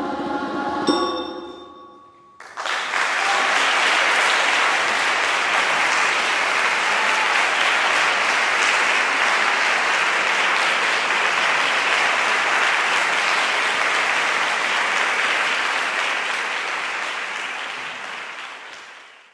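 A children's choir holds its final chord, cut off by a sharp stroke about a second in whose high ring dies away. Then an audience applauds steadily, fading out near the end.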